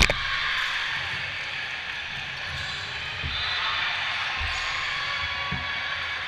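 Echoing gymnasium crowd chatter at a volleyball match, with a sharp smack right at the start and a few low thuds of a ball bouncing on the hardwood floor around the middle.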